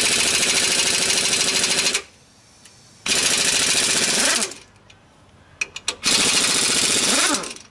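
Pneumatic impact wrench hammering nuts down onto wheel studs in three bursts, each run until the gun can go no further. This drives the pressed-in studs of a new hub and rotor fully seated. A few light clicks come between the second and third bursts as the socket is moved to another nut.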